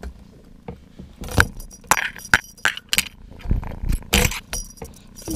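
Kitten batting at a cat toy on a coiled metal spring, making an irregular string of rattles, clinks and knocks.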